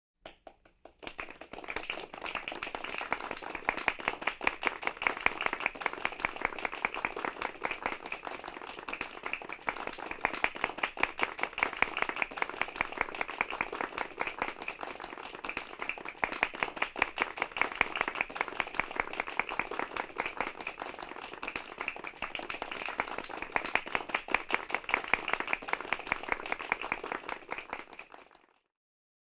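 Medium-sized group applauding politely: many hands clapping in a dense patter that builds in the first second, swells and eases in waves, and fades out near the end.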